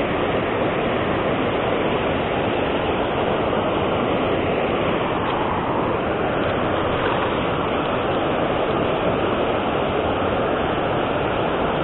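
Steady rushing of river water pouring over a low concrete weir.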